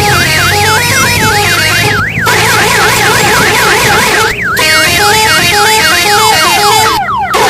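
Tour bus 'telolet' multi-tone horn playing a warbling siren tone that sweeps up and down about five times a second, over a stepped melody of horn notes. It breaks off briefly about two seconds in and again around four and a half seconds, then changes to quick falling sweeps near the end.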